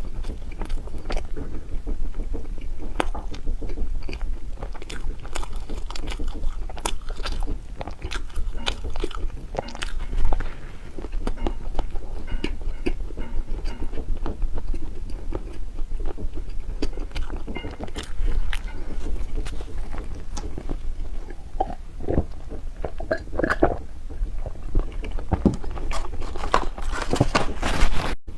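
Close-miked eating: biting and chewing snow-skin mochi desserts, a dense, irregular run of small clicks and smacks.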